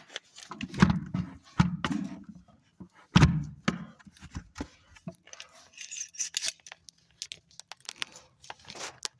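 Heavy wooden thumps and knocks as a cedar log is shifted and set into place, three loud ones in the first few seconds, then lighter clicks and scraping.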